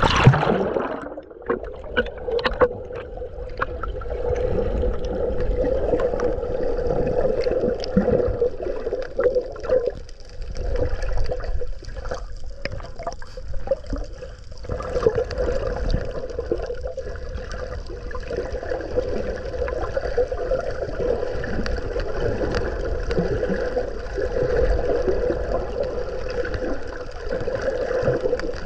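A splash as the camera plunges under the surface, then muffled underwater noise with a steady hum.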